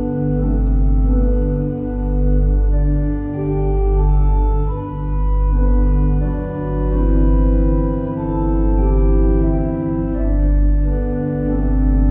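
Church organ playing slow sustained chords over a line of low pedal bass notes that change about every one and a half seconds.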